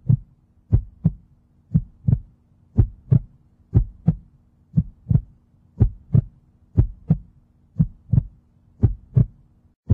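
Heartbeat sound effect: paired low thumps, lub-dub, about once a second, over a steady low drone.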